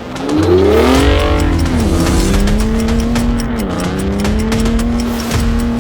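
Pickup truck engine revving hard as it pulls away from a standing start. Its pitch climbs and drops back twice as it shifts up through the gears, then holds steady.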